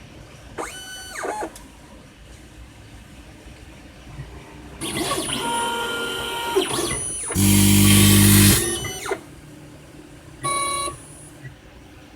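Autostainer 360 slide stainer's robotic arm moving in several short runs, its motors whining with pitch that rises and falls. A loud low buzz lasting about a second comes near the middle.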